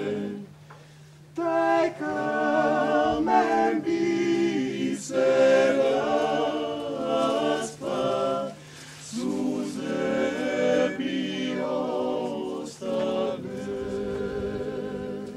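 A male klapa ensemble singing a cappella in close multi-part harmony, holding and bending long chords. The singing breaks off briefly about a second in and dips again around the middle.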